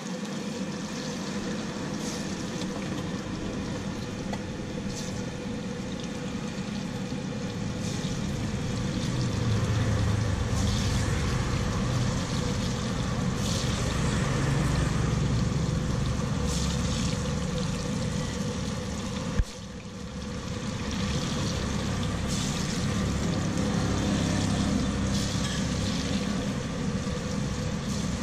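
Hot oil sizzling steadily in a large kadai as urad dal vadas deep-fry, with brief louder hisses every few seconds, over a constant low rumble. There is one sharp click about two-thirds of the way through.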